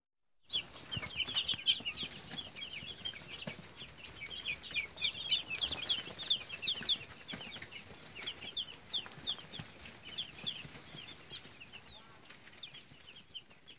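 A brood of young broiler chicks peeping continuously: many short, falling, high-pitched peeps overlapping, fading out near the end.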